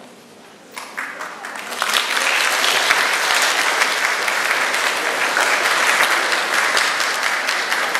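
Audience applauding: scattered claps start about a second in and swell into full, steady applause within another second.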